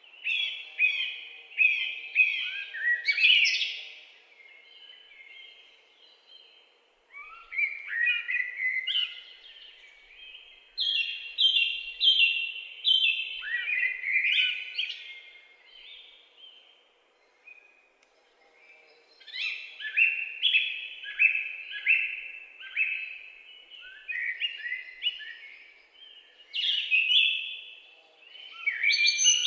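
Forest birdsong: songbirds singing repeated phrases of quick, downward-sliding chirps, each phrase a few seconds long with short pauses between. A faint steady hum lies underneath.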